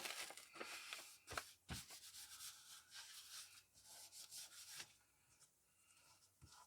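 Faint rubbing of hands smoothing a paper template down onto masking-taped MDF, with a couple of light knocks in the first two seconds; it goes almost silent near the end.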